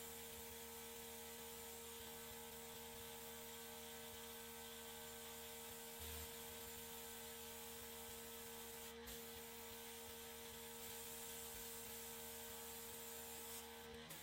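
Faint steady hum of two tones over hiss, with a single brief click about nine seconds in.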